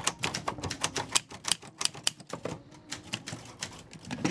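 Keys of a manual typewriter being struck by hand in an irregular run of sharp clacks, several a second, with a short lull about halfway through.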